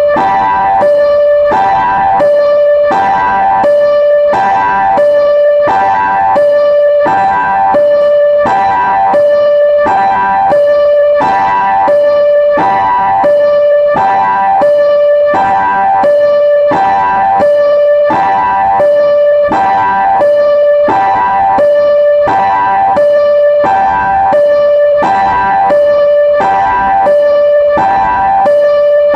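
Railway level-crossing warning alarm sounding its distinctive electronic melody: a lower note and a higher, chord-like note alternating about once a second, steady and loud, repeating without change.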